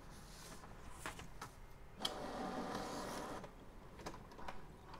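HP Smart Tank 515 inkjet printer's mechanism: a sharp click about two seconds in, then the mechanism running for about a second and a half, with lighter clicks before and after.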